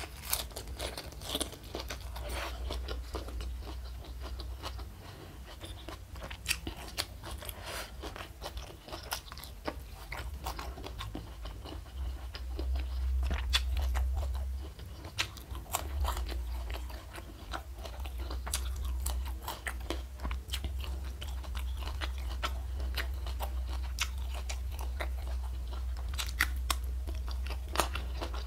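A person chewing and biting crunchy fried food close to the microphone, with many sharp crunches spread throughout. Under it runs a steady low hum that swells about twelve seconds in.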